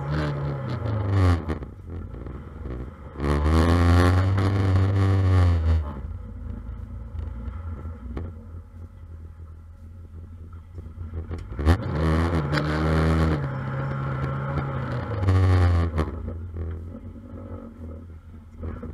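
Micro banger race car's engine heard from inside the cabin, revved hard twice, each time climbing in pitch, holding, then dropping back, with idling and sharp knocks and rattles between.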